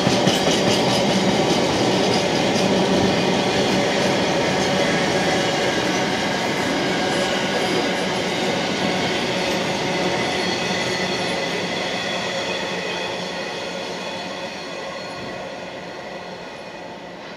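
Empty intermodal flat wagons of a freight train rolling past, wheels rumbling and clattering on the rails with a thin high steady squeal. The sound fades steadily as the end of the train draws away.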